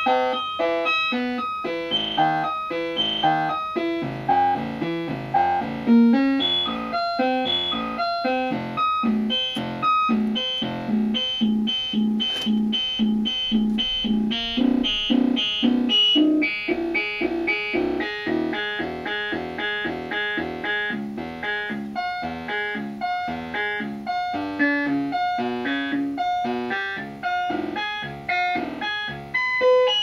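Modular synthesizer sequence: a quick, unbroken stream of short pitched notes stepped out by a four-knob sequencer module. The run of pitches shifts partway through as the sequencer's knobs are turned.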